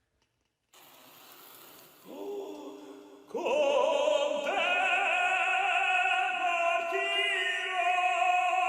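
Operatic singing: a voice holding long notes with vibrato. It comes in loudly about three seconds in, after a near-silent start.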